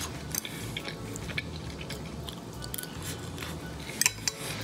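Chewing and the clicks of a metal fork against a plate as a man eats curry chicken, rice and potato, with two sharp fork clicks about four seconds in, over background music.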